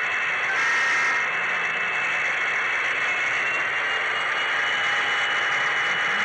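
Steady whirring hiss of a model train running along its rails, heard from a camera riding on the train, with a faint high whine coming in about halfway through.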